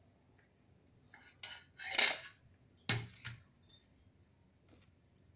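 A metal spoon scraping and knocking against a stainless steel bowl and a glass bowl as chana chaat is served. There are a handful of separate clinks and scrapes, the loudest knock about three seconds in, followed shortly by a brief metallic ring.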